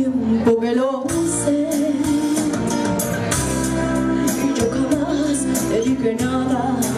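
A woman singing into a microphone over Latin-style music, amplified on a live stage.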